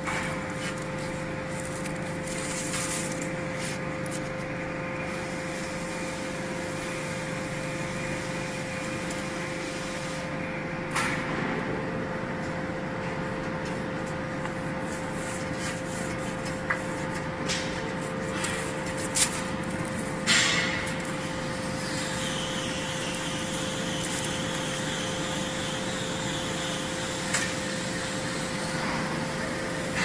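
Vertical baler's hydraulic power unit running with a steady hum and a constant whine, with a few sharp clicks and knocks from hands working at the compressed bale.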